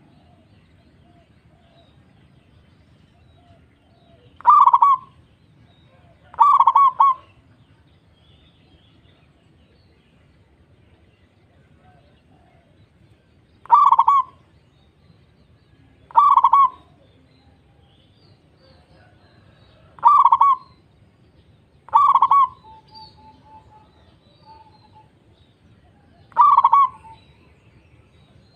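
Local zebra dove (perkutut) cooing in full song: seven short, loud coos, mostly in pairs about two seconds apart with pauses of several seconds between pairs.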